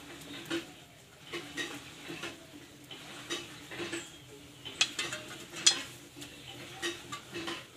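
Metal spatula scraping cooked rice out of an aluminium pot and onto a steel plate: a run of short scrapes and light clinks, one or two a second, with two sharper knocks of metal on metal about five seconds in.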